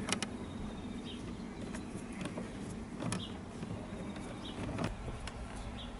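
A few faint clicks and light knocks of hands working the sunroof switch loose from its panel, over a steady low background rumble, with a few faint short high chirps.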